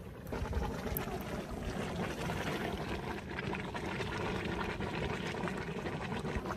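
A steady rushing noise that starts abruptly just after the beginning and holds even throughout.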